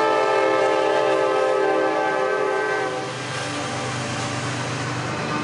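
Union Pacific freight train passing close by, with a locomotive horn sounding one steady chord that stops about three seconds in. Under and after it is the rumble of the locomotives and freight cars rolling past.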